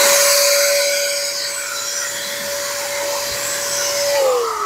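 BigBoi BlowR Buddi handheld electric car-drying blower running at full speed, blowing grass clippings off a sidewalk: a steady motor whine over rushing air. About four seconds in it is switched off and the whine falls in pitch as the motor spins down.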